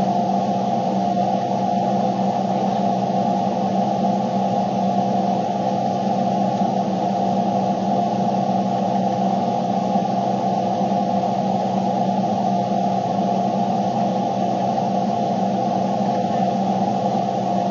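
Steady low drone of car cabin noise, with a few humming tones held underneath and no change throughout.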